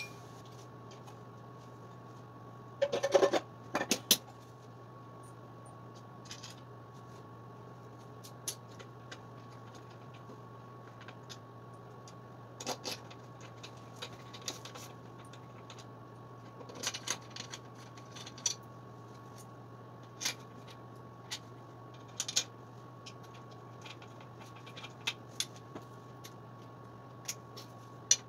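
Occasional clinks and clanks of metal tools and scooter parts being handled and set down, with the loudest cluster about three seconds in, over a steady low background hum.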